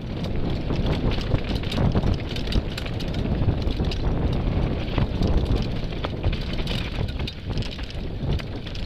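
Mountain bike ridden down a rocky dirt trail, heard from a camera on the rider: wind buffeting the microphone over a steady low rumble of tyres on dirt and stones, with frequent sharp clicks and rattles from the bike jolting over the rough ground.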